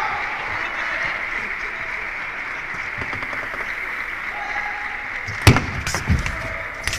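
Steady murmur of an arena crowd. Near the end come a few sharp clicks of a celluloid table-tennis ball striking paddle and table, as a serve is played and the rally opens.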